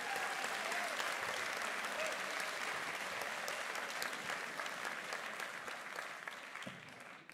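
Audience applauding, a dense patter of hand claps that fades and dies away near the end.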